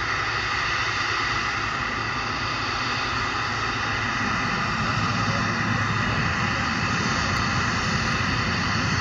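Boeing 717's two rear-mounted Rolls-Royce BR715 turbofans running as the jet rolls along the runway toward the listener: a steady high whine over a broad jet rush. The low rumble grows stronger about halfway through.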